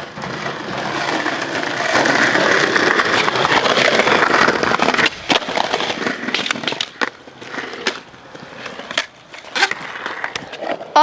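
Skateboard wheels rolling over concrete paving stones for about five seconds, then a sharp clack of the board, followed by a few scattered clacks as the board is popped and landed.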